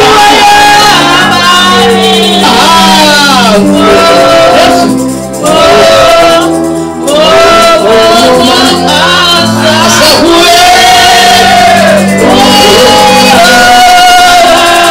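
Gospel praise-and-worship song: voices singing held, sliding melody lines over steady instrumental accompaniment, loud and in a large room.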